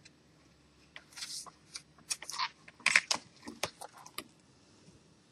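Stiff picture flashcards handled and flipped by hand: a quick run of clicks, slaps and short rustles starting about a second in and stopping around four seconds.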